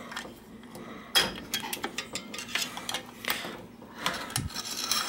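Light, scattered metallic clicks and clinks of a Y-shaped hex wrench working the cable clamp bolt on a bicycle front derailleur, loosening it to free the old shift cable.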